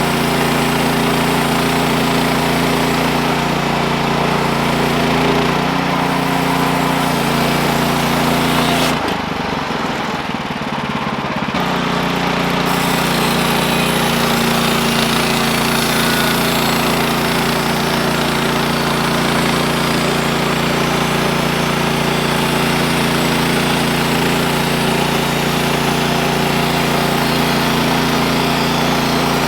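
Small gasoline engine of a portable bandsaw sawmill running steadily during milling, with a brief drop in the sound about nine seconds in that lasts a few seconds before the steady running returns. The mill's clutch and drive belt are worn, which the owner found was letting the blade stop in the cut.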